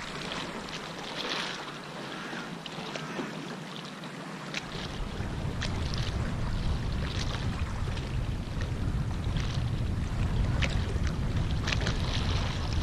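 Wind buffeting the microphone, with a heavy low rumble setting in about five seconds in, over small waves lapping and slapping against the concrete harbour quay wall with scattered short splashy clicks.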